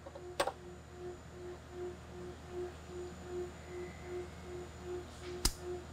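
A faint hum pulsing about two to three times a second, with a light click about half a second in and a sharp click near the end: the 1911 pistol's hammer falling as the 4-pound trigger-pull test weight trips the sear.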